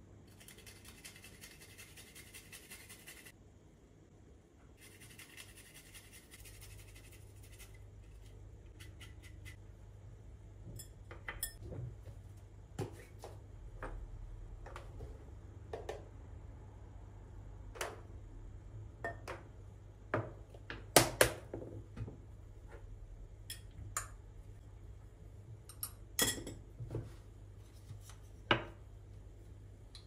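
Seasonings shaken and sprinkled into a glass mixing bowl of minced meat, with light clinks and taps of spice containers against the glass and the wooden board. Near the start comes a dense, rapid crackle lasting about three seconds, and then a shorter one.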